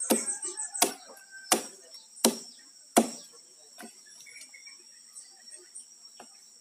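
Axe chopping into a felled, dead agarwood log: five hard blows about three quarters of a second apart, then a couple of lighter knocks. A steady high insect drone runs behind.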